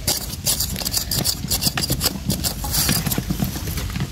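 A narrow metal digging blade scraping and chopping into dry sandy soil, a quick irregular run of scrapes and knocks while a cricket burrow is dug out, over a steady low rumble.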